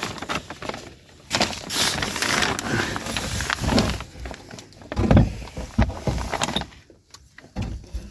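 A wooden board being forced into place under a floor: irregular scraping and knocking, with a couple of heavier thumps about five seconds in.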